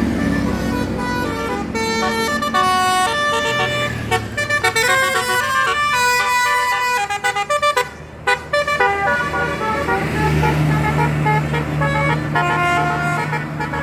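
Bus "telolet" multi-tone air horn playing a quick tune of short stepped notes, breaking off briefly about eight seconds in. A steady low bus engine drone takes over for the last few seconds.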